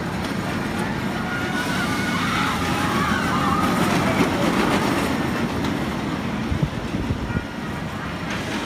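Inverted roller coaster train running along its steel track overhead, a steady rumble with a few sharper clatters in the second half. Faint high, wavering voices are heard about two seconds in.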